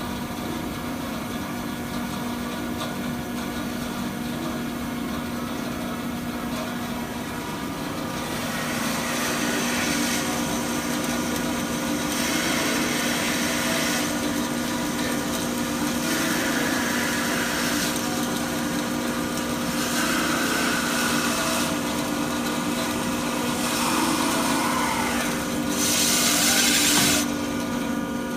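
Steelmaster H-350 double-column horizontal bandsaw running with a steady motor hum. About eight seconds in its bi-metal blade starts cutting a piece of timber under hydraulic down feed, a rasping saw noise that swells and fades every few seconds, loudest near the end and then dropping away.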